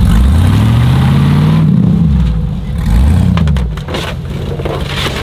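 An off-road rock-crawler buggy's engine revving hard twice as it climbs onto a small car, the pitch rising and falling each time. Near the end there are sharp crunches and clatters as the car's body is crushed under the tyres.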